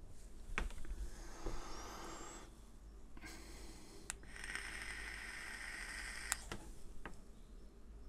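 An e-cigarette being puffed: two stretches of soft airy hiss from drawing through the device and exhaling, the second with a faint whistle in it, with a few small clicks.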